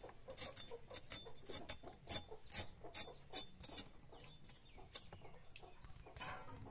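White radish being scraped and cut by hand against a bonti, an upright curved kitchen blade: a quick run of short, sharp strokes, a few a second, that thins out after about three and a half seconds.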